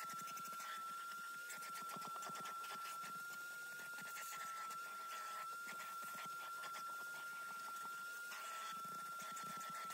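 Vacuum cleaner running with a steady high whine while its hose nozzle is worked over car floor carpet, with many small crackles and clicks throughout.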